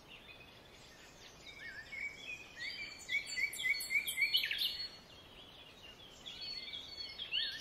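Several birds chirping and singing over a faint hiss, with runs of quick repeated high chirps, busiest in the middle and thinning out before a last flurry near the end.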